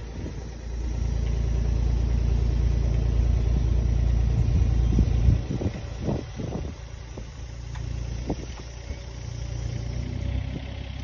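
Diesel engine of a hydraulic digger running, rising in level about a second in as the boom lifts the old radiator, then settling back toward idle after about five seconds. Gusts of wind buffet the microphone in the second half.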